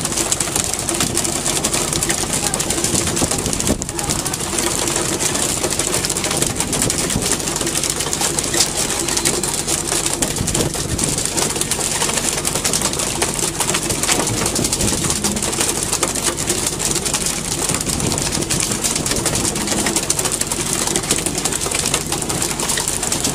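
Steady wash of wind and sea noise on an open fishing boat, with a low engine drone underneath.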